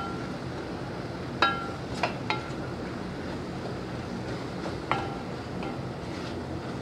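Wooden spoon stirring minced meat and vegetables in a metal pot, striking the pot about five times with short ringing clinks, over a steady hiss.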